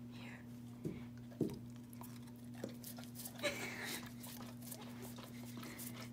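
A dog licking a popsicle: a run of small licking clicks and smacks, with a few louder ones in the first couple of seconds, over a steady low hum.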